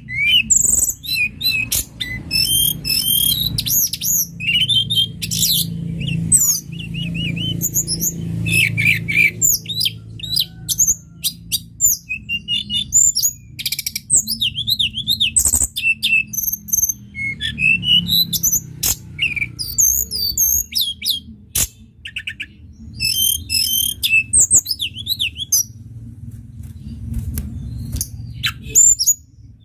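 Tledekan gunung songbird singing a fast, varied song of high chirps, whistles and zigzag trills, with short pauses, over a steady low hum.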